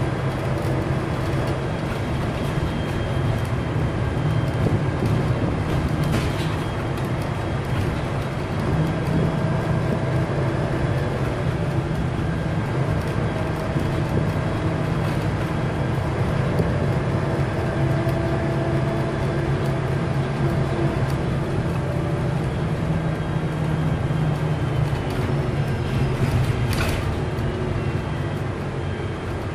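City bus engine running under way with a drone and a thin, steady high turbocharger whistle, loud throughout. Brief knocks or rattles come through about six seconds in and again near the end.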